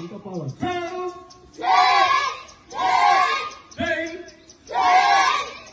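A group of martial arts students shouting together in unison, four loud drill shouts about a second apart, with a single lower voice calling just before them.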